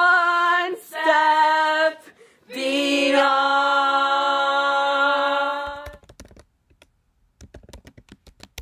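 A group of young voices belting a show tune without accompaniment, in three phrases, the last a long held note that stops about five and a half seconds in. Then a run of soft, quick clicks like keys being typed.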